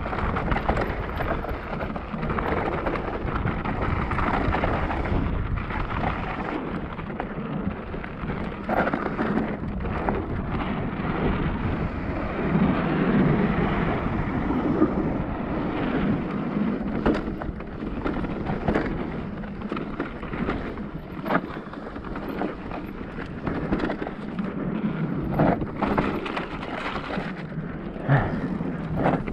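Cube Stereo Hybrid 160 electric mountain bike ridden over a rough trail: tyres rumbling over dirt and stones, with frequent knocks and rattles from the bike over bumps and wind buffeting the microphone.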